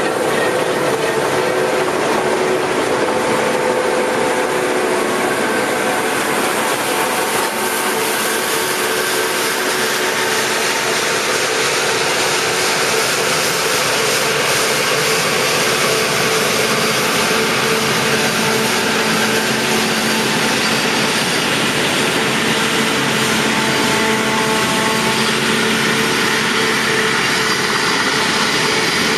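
Combine harvester working a rice crop: a steady, loud mechanical din of engine and threshing machinery with several held tones over an even hiss.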